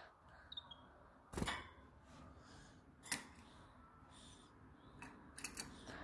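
Sharp clicks and knocks around a wire birdcage. The strongest is about a second and a half in, another comes around three seconds, and a quick cluster of them comes near the end. Faint, short, high peeps from a domestic canary sound between them.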